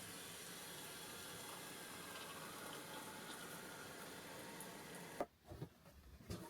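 Steady rush of running water that cuts off abruptly about five seconds in, followed by a few light knocks.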